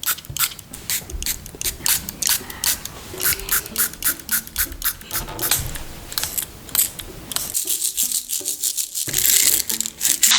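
Light background music with a rapid run of sharp clicks and crackles over it, then a denser rustling rush near the end.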